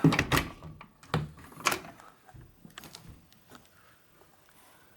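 A quick cluster of short knocks and bumps, loudest at the start, with a few more fainter ones over the next three seconds.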